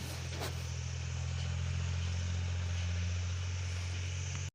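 A steady low mechanical hum, like an engine running in the background, with a single faint click about half a second in.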